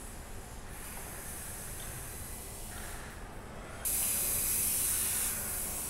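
Compressed air hissing from pneumatic equipment on a car-body welding fixture. A sudden loud hiss starts about four seconds in and eases after a second and a half, over a steady machinery hum.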